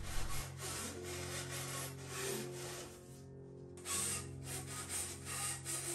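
Repeated rasping strokes of a tool cutting or shaping a foam block for a surfboard nose, pausing briefly about three seconds in. Soft background music plays underneath.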